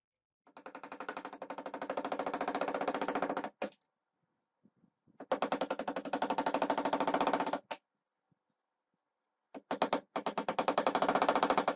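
Power chisel hammering rapidly as it cuts into the end of a wooden hammer handle, in three bursts of a few seconds each.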